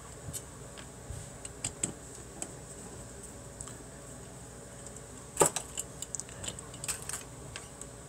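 Light clicks and taps of a screwdriver and small metal parts as screws are worked out of a computer case fan and its wire grille. One sharper click comes about five and a half seconds in, followed by a quick run of lighter clicks.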